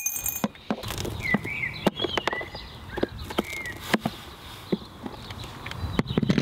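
Hand work on a stainless steel window frame screwed into a varnished wooden cabin side: scattered sharp clicks and taps of the screwdriver, screws and metal frame as it is taken off, with a few short high chirps in the first half.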